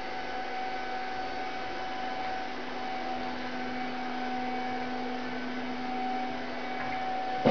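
Steady electric machine hum with a clear high whine, from the Dynoshock 2 shock absorber dynamometer running. A lower hum joins about three seconds in and drops away near the end.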